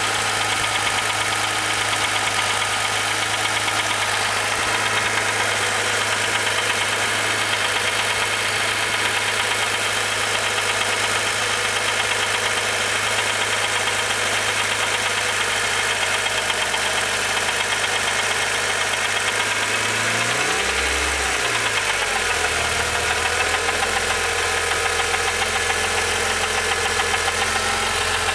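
Honda D-series engine idling with a grinding noise from a rebuilt S20 manual transmission, a noise that stops whenever the clutch is pushed in. About two-thirds of the way through, the engine note dips briefly and comes back up.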